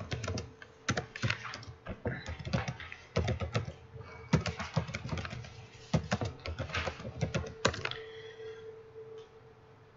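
Computer keyboard being typed on, irregular runs of key clicks that stop about eight seconds in, over a faint steady hum.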